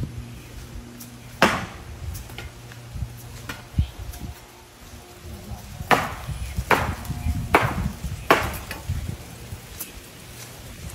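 Garden hand tools striking the dirt ground during yard clearing: a series of sharp, irregular chopping strikes, one about a second and a half in and several close together between about six and eight and a half seconds in.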